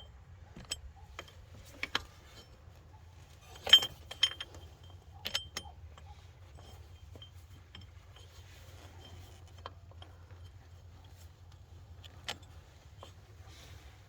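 Scattered light metallic clinks and taps as a billet aluminum power steering pump bracket and hand tools are handled and set into place in the engine bay, the loudest clink a little under four seconds in, over a faint low steady hum.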